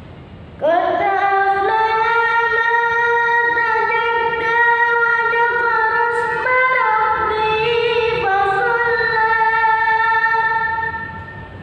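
A child's voice singing one long, unbroken held note for about ten seconds, turning through a few nearby pitches partway through and fading out near the end, over a low steady background hum.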